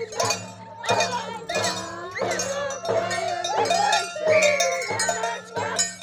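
Villagers singing a high-pitched Andean carnival song to a tinya, a small hand drum, struck in a steady beat with sharp strokes.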